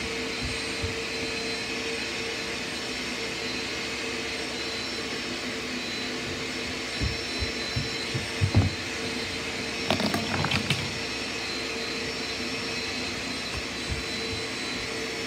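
Hand-held hair dryer running steadily with a constant whir, blowing dry freshly washed fidget toys. A few knocks and a short clatter of the toys being handled come around the middle.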